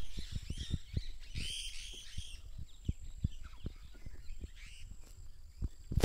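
A flock of parrots calling as they fly over: repeated short rising-and-falling calls, thickest in the first two seconds or so and fainter after. Low bumps of handling noise on the microphone come and go underneath.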